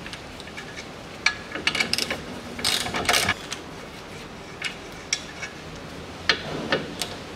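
Ratchet wrench clicking in short irregular bursts, with metal clinks, as the 17 mm nuts and bolt holding the ball joint to the lower control arm are undone.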